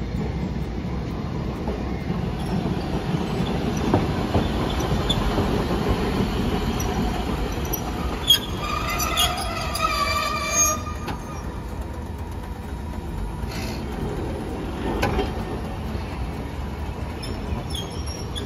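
Hiroshima Electric Railway streetcar No. 352 rumbling along its street track as it passes and pulls in, with a few sharp knocks. About halfway through, a high-pitched squeal rings out for two or three seconds and stops.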